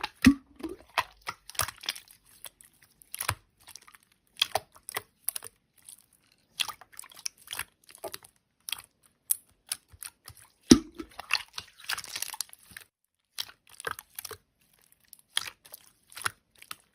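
Slime being squished and pulled by hand, giving irregular crackling, crunching and popping clicks, with a sharper snap about eleven seconds in.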